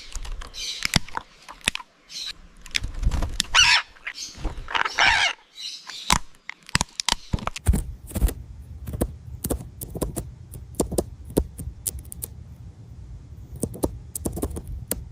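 A parrot gives harsh, noisy calls over the first few seconds. Its beak then crunches and shreds apple in a long run of sharp clicks and snaps.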